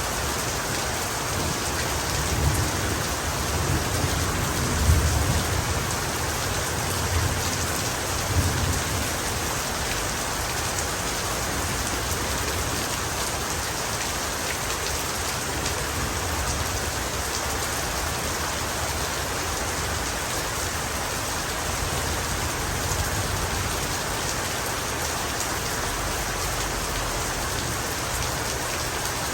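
Heavy rain falling steadily, with a low rumble of thunder rolling in a couple of seconds in and fading out by about nine seconds.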